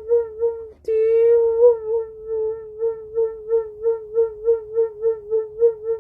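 A single held musical note, sung or blown at one steady pitch. It breaks off briefly about a second in, then is held again with a regular pulsing about three times a second.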